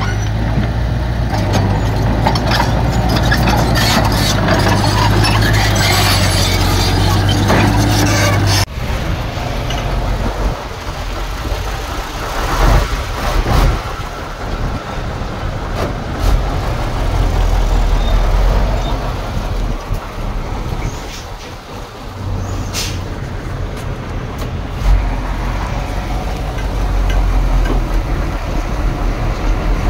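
Heavy diesel earthmoving machinery running, with a deep, steady engine note and scattered knocks. The sound changes abruptly about nine seconds in to a rougher, more uneven machine noise.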